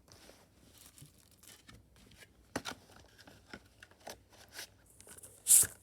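Blu-ray case and packaging being handled: scattered light clicks and rustles, with one louder rustle near the end.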